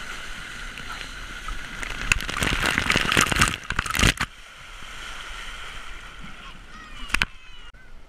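Water rushing under a rider sliding down a water slide, rising into loud splashing about two seconds in as the rider hits the water at the bottom. Just after four seconds in the sound drops suddenly, as if muffled underwater, and stays low with a sharp click near the end.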